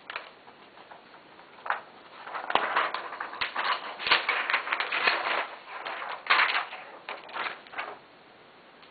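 Hands handling a laptop screen panel and its packaging: a few light clicks, then a stretch of rustling with sharp clicks and knocks from about two and a half seconds in, stopping near the end.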